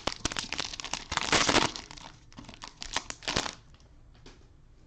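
Cellophane card-pack wrapper crinkling and tearing as it is opened, a dense crackle for about three and a half seconds that then dies away.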